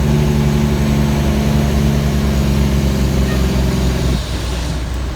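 Kenworth T800 truck's diesel engine running with a steady pitched drone over a low pulsing rumble. The drone cuts off abruptly about four seconds in, leaving a quieter rumble.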